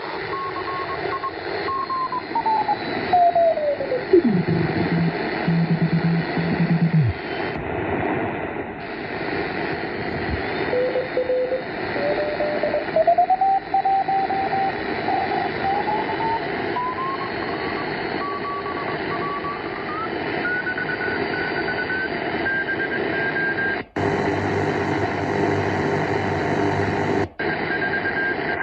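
Shortwave radio receiver on 4333 kHz lower sideband: static hiss with a Morse code signal's beat tone, whose pitch slides down to a low hum and then climbs back up in steps to a high note as the receiver is tuned across it. Near the end the sound cuts out for a moment, turns wider and hissier for about three seconds, and cuts back.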